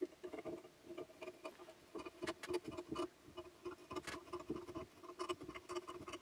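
A hand tap in a small tap handle being turned into a hole in a red plastic bracket, cutting thread: a faint, irregular run of small clicks and ticks.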